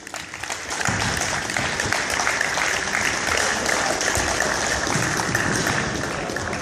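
Crowd applauding, swelling about half a second in and then holding steady.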